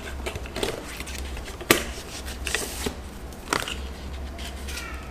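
Cardboard packaging being handled and closed up: a run of light clicks, taps and rustles, with one sharp knock about a second and a half in.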